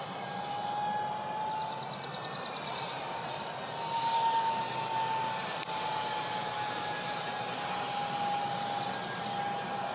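Twin electric ducted fans of a radio-controlled Freewing Su-35 model jet in flight: a steady high whine over a hiss. The whine rises a little in pitch and loudness around the middle, then eases back down.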